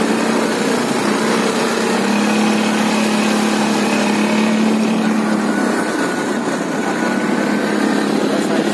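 Small four-wheel-drive ATV engine running steadily as it drives, with a constant rushing noise over it.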